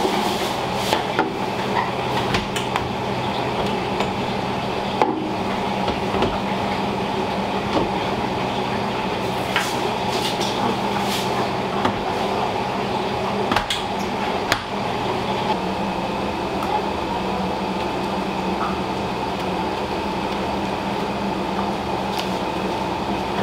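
Steady hum of running kitchen machinery, with a few sharp clinks and knocks of utensils or containers scattered through it.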